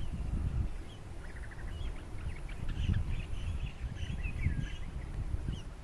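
Birds chirping and calling outdoors, with a short rapid trill about a second in and scattered chirps after it, over a louder uneven low rumble.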